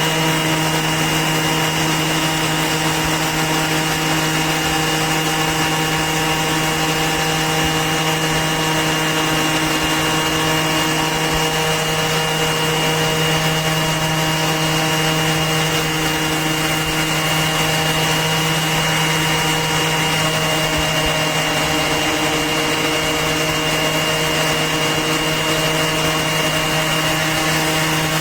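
Makita XOB01Z 18V cordless 5-inch random orbit sander running steadily on wood, a continuous, even motor hum with a whirring sanding rub.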